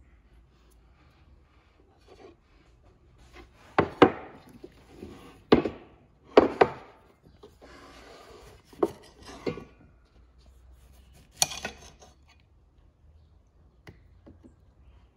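Sharp knocks and clatters of kitchenware set down on a wooden tabletop, about seven over eight seconds, the loudest about four and six seconds in. A short soft rasp in the middle as a knife saws through a tomato over a china plate.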